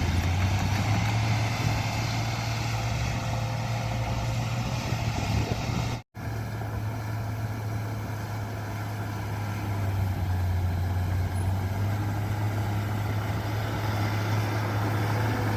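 Bulldozer's diesel engine running steadily with a low drone. The sound cuts out for a split second about six seconds in.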